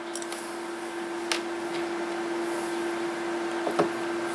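A steady hum at one pitch, with two light clicks of a screwdriver and screws being handled on the boombox and workbench, about a second in and near the end.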